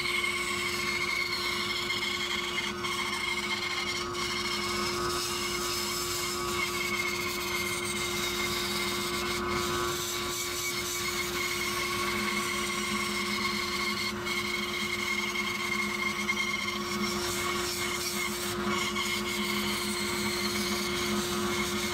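Bandsaw running steadily while its blade cuts through a wooden box blank, following the curved interior line entered from the end grain.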